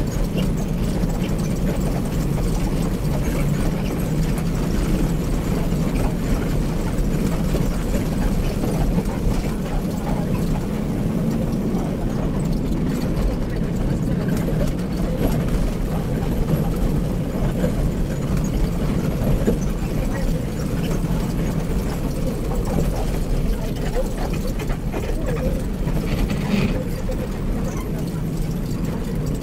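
Daewoo BS106 bus's diesel engine running steadily under way, heard from inside the driver's cab, with road noise.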